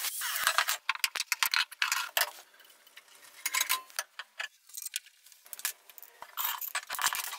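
Rapid metallic clinking and rattling of steel-tube chair-frame parts being handled, sped up. The clatter is densest in the first two seconds and again near the end, with scattered clicks between.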